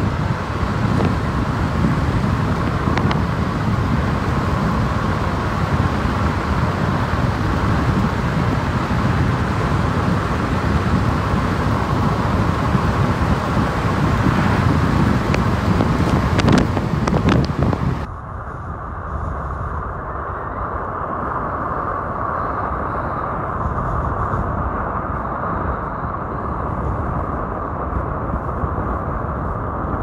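Car driving along a road: loud rushing wind and road noise. About two-thirds of the way in the sound abruptly turns duller and steadier, a muffled road and engine hum as heard inside the cabin.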